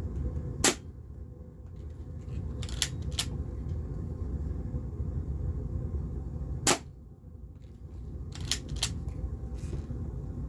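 Plastic spring-powered airsoft pistol (Game Face P311 1911 replica) firing heavy 0.25 gram BBs: a sharp snap about every six seconds, twice, with lighter paired clicks between as the slide is cocked for the next shot. A steady low hum runs underneath.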